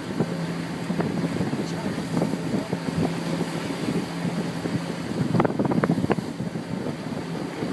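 A boat's engine running with a steady low hum, under wind buffeting the microphone. A short flurry of voices or knocks comes about five and a half seconds in.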